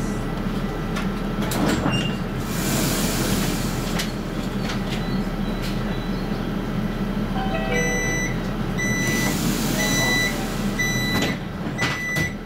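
A35 tram standing at a stop, its onboard equipment humming steadily. About seven seconds in a short falling chime sounds, then five beeps about a second apart: the door-closing warning. Knocks near the end sound like the doors shutting.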